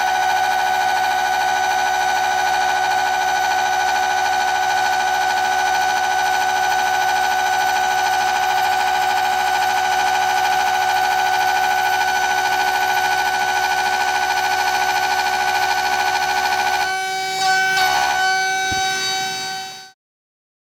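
CNC router spindle at 24,000 rpm making a heavy, deep dovetail cut in walnut: a loud, steady, high whine. About three seconds before the end the whine thins and a knock is heard, then the sound cuts off suddenly.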